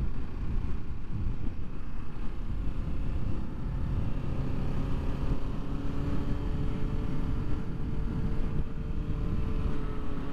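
Kawasaki Ninja 650's parallel-twin engine running steadily while the bike cruises, under wind and road noise on the rider's microphone. The engine note eases slightly lower in pitch in the second half.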